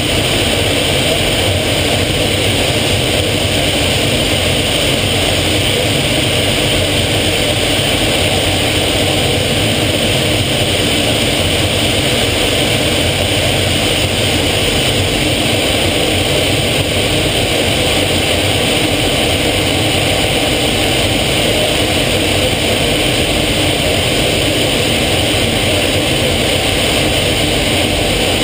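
Steady engine and air noise of a jet trainer in flight, heard from inside the closed cockpit, holding level without change.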